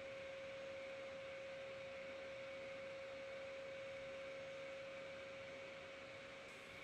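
A faint steady hum: one level tone held unchanged over a soft hiss, with no variation in pitch.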